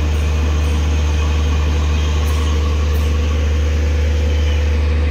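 Indian Railways locomotive, just coupled to the train, running at a standstill with a steady, loud low drone.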